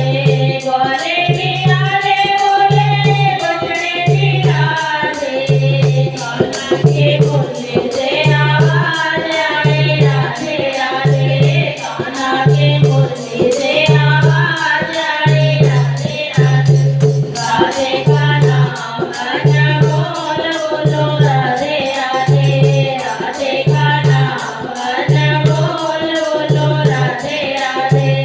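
Hindi devotional bhajan: singing voices over a steady low drum beat about once a second and fast, even high-pitched percussion ticks.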